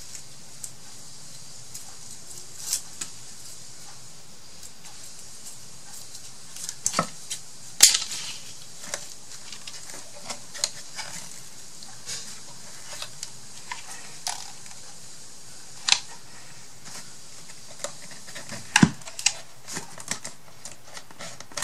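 Scattered light clicks and taps of small hard objects being handled and set down, with a few sharper knocks standing out.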